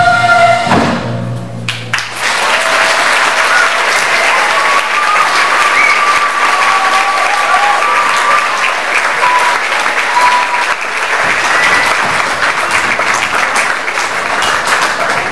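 The last held note of a sung number ends about a second in, then an audience applauds steadily, dying away near the end.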